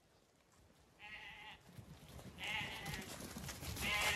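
Zwartbles lambs bleating as they run in: three bleats, starting about a second in, halfway through and at the end.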